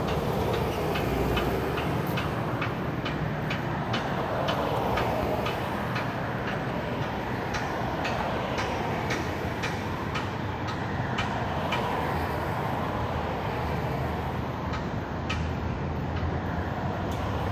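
City traffic noise: a steady rumble of passing vehicles, with many scattered sharp clicks and ticks over it.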